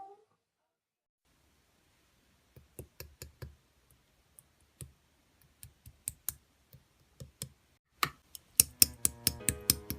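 Slime being handled, giving sharp sticky clicks and pops, scattered at first and then coming fast and louder near the end. Background music with strings comes in about nine seconds in.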